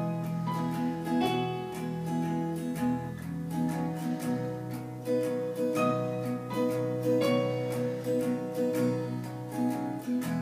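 A small band plays a slow worship song: an acoustic guitar is strummed in a steady rhythm over sustained keyboard chords and an electric bass line.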